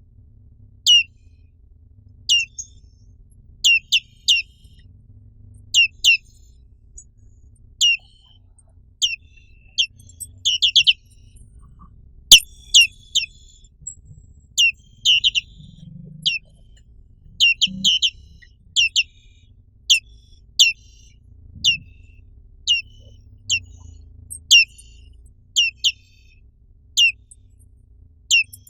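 Black-capped white-eye (Zosterops atricapilla) giving sharp, high call notes that each sweep down in pitch, roughly one or two a second, sometimes in quick runs of three or four. One sharp click about halfway through, and a faint low hum beneath.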